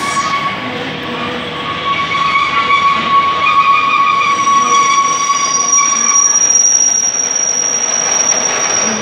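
Empty container flat wagons of a freight train rolling past, their wheels squealing in steady high-pitched tones over the rumble of the wheels. A higher, shriller squeal joins about four and a half seconds in.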